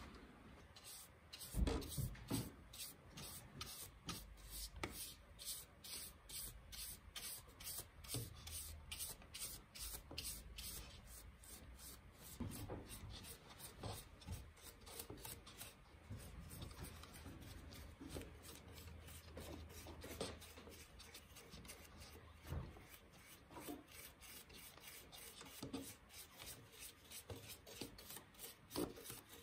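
Bristle brush stroking finish onto the twisted stem of an apple-burl goblet: quiet, repeated brushing and rubbing against the wood, with a few soft knocks.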